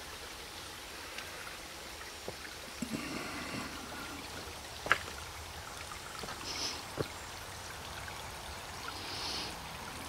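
Small woodland stream trickling steadily over rocks and through fallen branches. A couple of sharp clicks about halfway through and two seconds later.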